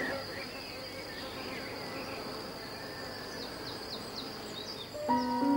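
Insects buzzing as a steady drone, with a thin steady high tone and a few faint short chirps over it. Piano music comes in just before the end.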